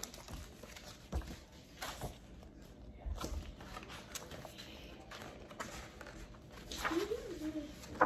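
A paperback picture book being handled and its pages flipped close to the microphone: soft paper rustles and a few light knocks.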